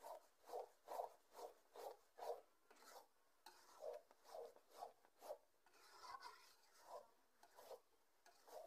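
Spatula scraping and stirring thick, nearly dried-down mango pickle in a karai, mixing in the ground spice, in quick regular strokes about two a second with a short pause partway through.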